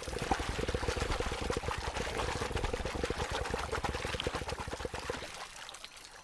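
Male yacare caiman's infrasound display: its body vibrates under the surface, making the water spatter and spray upward in a fast, dense rattle over a low rumble. It is the male's courtship show of strength. The vibration dies away about five seconds in.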